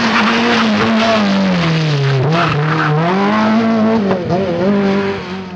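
Rally car engine running hard at high revs; its pitch falls for about two seconds, then climbs again as the car accelerates, with a short dip about four seconds in.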